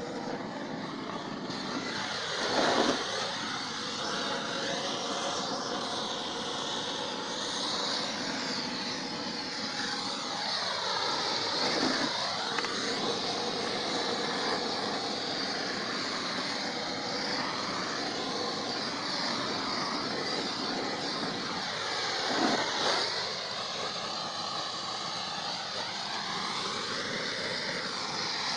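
Handheld gas blowtorch flame hissing steadily while it scorches the inside of a wooden beehive box. Three times the hiss swells and its tone sweeps down and back up as the flame moves close to the box walls.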